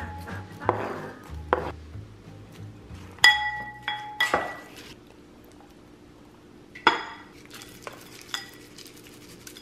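Dishes and utensils clinking in a kitchen: scattered sharp knocks, with two ringing clinks a little over three seconds in.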